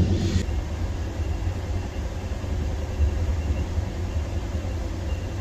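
Passenger train running steadily, heard from inside the coach: a low, even rumble with a faint hiss. A louder sound in the first half second cuts off abruptly.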